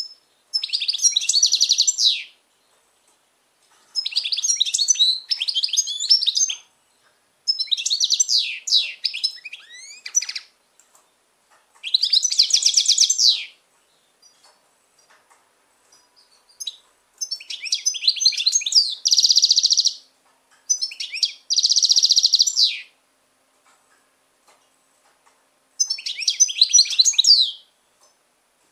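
Caged European goldfinch singing: about seven short twittering song phrases of one to two seconds each, separated by brief pauses, with two phrases past the middle turning into a fast trill.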